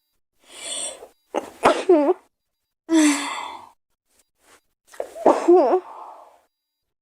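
A girl sneezing twice, each sneeze preceded by a breathy in-drawn build-up; the second sneeze comes about three and a half seconds after the first and is the louder.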